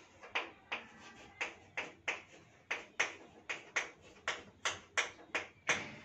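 Chalk writing on a chalkboard: a run of short taps and scrapes, about two or three strokes a second, as letters are written by hand.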